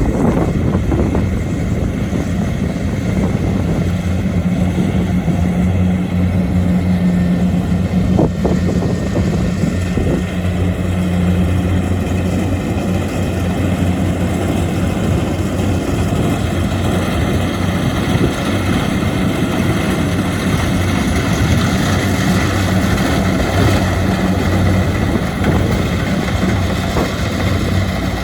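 Kubota DC-70 Plus combine harvester's diesel engine running steadily with a deep, even hum.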